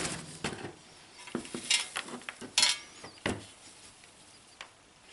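Stove ash pan being emptied slowly into an ash bucket: ash sliding and scraping out, with light rattling and a few sharp knocks of the pan against the bucket.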